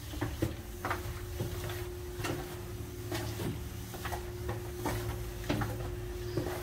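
Footsteps walking down a spiral staircase, a knock for each step about every half second to a second, over a steady faint hum.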